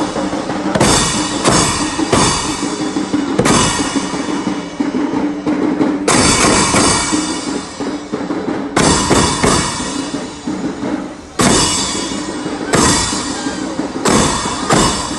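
Large hand-held frame drums beaten by marchers in a procession: loud strikes at an irregular pace, some coming in quick pairs, over a steady sustained tone.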